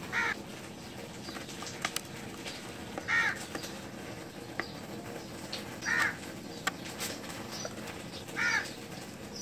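A crow cawing four times, one harsh call about every three seconds, with light clicks of a metal pick scraping in the plastic vent grille of a TV case between the calls.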